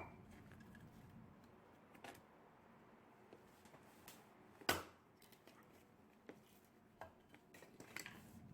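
A few sparse, sharp knocks and clinks over near silence, the loudest one about halfway through.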